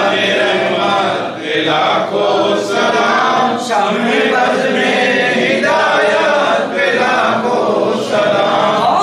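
A group of men chanting a devotional recitation together in unison, in sung phrases with short breaks between them.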